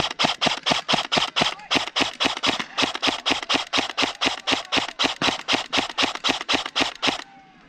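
Airsoft rifle firing a long, steady string of rapid shots, about five a second, that stops about seven seconds in.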